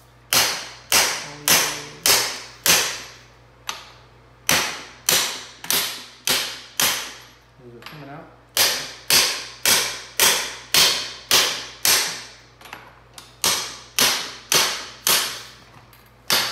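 Steady hammer blows on the top of a Honda Grom's front fork and upper triple clamp, about two a second with two short pauses, each a sharp clank with a brief ring, as the fork tubes are knocked down to free them from the clamps.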